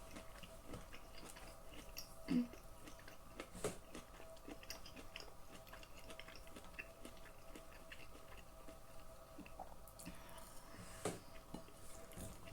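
A person quietly chewing a mouthful of dry falafel: soft wet mouth clicks throughout, with a few louder smacks about two and a half seconds in, near four seconds, and near the end.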